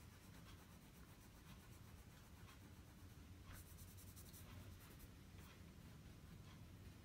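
Near silence with faint, soft scratching and small ticks: a paintbrush wet with rose spirit wiping a smudge off the iced cake's surface.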